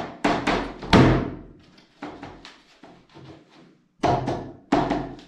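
Laminate parquet planks being knocked into place: a string of sharp wooden knocks, about one a second with a few quicker ones in between, the loudest about a second in.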